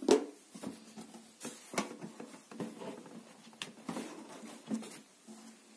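Cardboard carton and the plastic parts packed in it being handled: a run of irregular knocks, scrapes and rustles that stops near the end.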